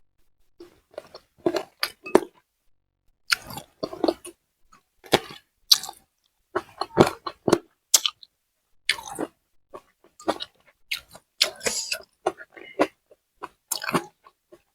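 Close-miked chewing and crunching of food by a person eating, in irregular short bites with brief pauses between them.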